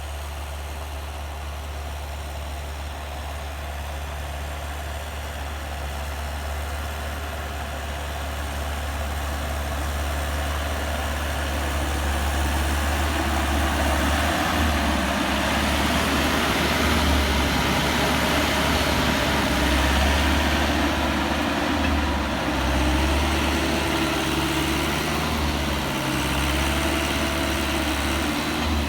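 Crawler tractor's diesel engine running steadily as it pulls a seed drill, growing louder over about the first dozen seconds as it comes nearer, then holding level.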